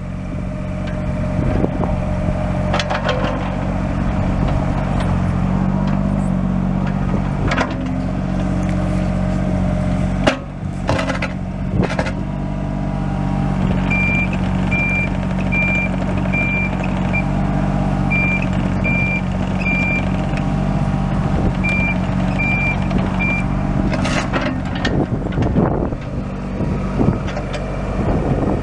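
A 2006 IHI 35N mini excavator's Isuzu three-cylinder diesel running steadily as the machine works, with a few sharp knocks. About halfway through, its travel alarm starts beeping at an even pace, somewhat faster than one beep a second, and keeps on for about ten seconds.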